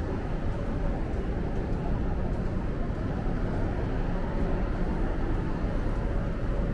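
Busy city street ambience: a steady low rumble of traffic with the indistinct din of people around.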